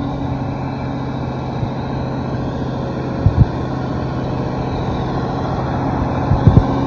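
Heavy-equipment diesel engine running steadily with a low, even hum. Two brief low double thumps come through, one about three seconds in and one near the end.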